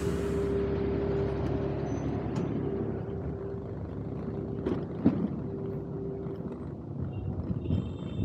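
Road and traffic noise heard from a moving electric scooter, with a steady hum that stops about six and a half seconds in and a few short knocks around five seconds in.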